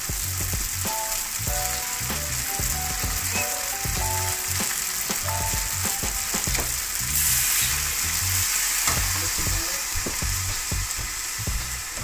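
Rice vermicelli sizzling in a hot wok, a little water just added to the frying noodles; the sizzle swells about seven seconds in.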